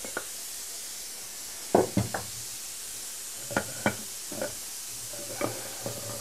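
About ten sharp metallic knocks and clinks, spread unevenly, over a faint steady hiss: an Afghan kazan, the cast-aluminium pressure pot, and its lid being handled while the food inside is still boiling.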